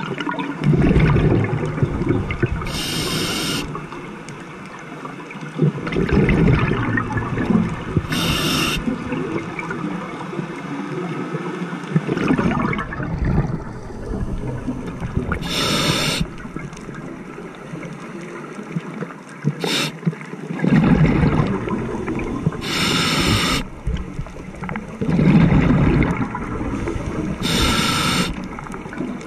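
Scuba diver breathing through a regulator underwater: a short hissing inhalation about every five to seven seconds, five times, each followed by a low rumbling gurgle of exhaled bubbles.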